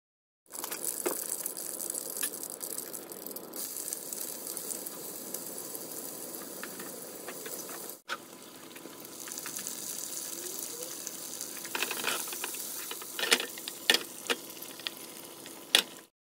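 Hot oil sizzling in a frying pan as thinly sliced onion fries for a curry garnish, stirred with a wooden spatula. The sizzle breaks off for an instant about halfway, and a few sharp clicks or pops stand out near the end.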